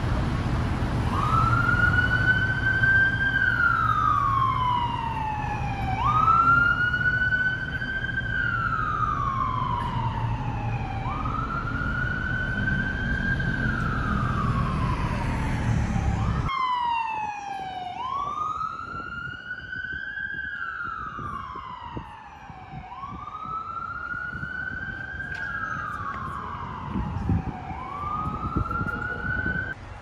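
Emergency vehicle siren in a slow wail, rising and falling about once every five seconds, over steady city traffic rumble that drops away abruptly about halfway through.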